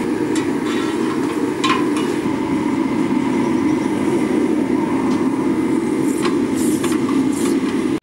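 Propane gas forge burner running with a steady roar while knife blades are heated for hardening, with a few light knocks over it.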